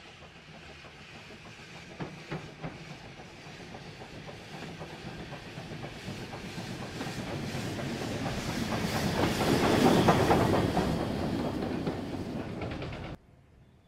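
LNER Class J72 0-6-0 tank engine running past on the station loop, its wheels clicking over the rail joints and points, with steam hissing. It grows steadily louder to a peak as it passes, with a few sharp clanks early on, then the sound cuts off suddenly near the end.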